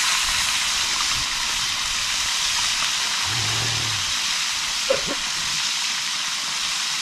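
Fish frying in hot oil in a pan: a steady sizzle, with a short tap about five seconds in.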